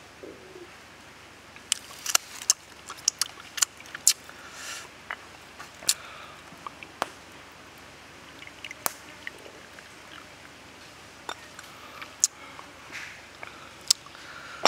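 Many sharp clicks and taps, most in the first half, from handling a glazed ceramic teapot, cup and a bamboo-skewered grilled octopus on a wooden stump. Near the middle, tea is poured from the teapot into the ceramic cup.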